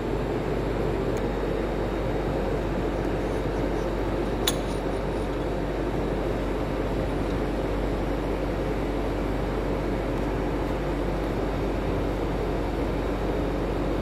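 Steady droning hum of background machinery throughout. A sharp metallic clink comes about four and a half seconds in, with a fainter tick near one second: a socket wrench knocking on the motorcycle's handlebar bolt.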